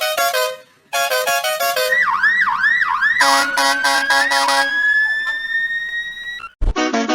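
Electronic siren effect mixed with a quick synthesized tune: the tune's notes are broken about two seconds in by a siren wailing up and down three times, then more notes over a steady low tone. A single slow rising siren tone follows and cuts off suddenly, and the tune starts again at the very end.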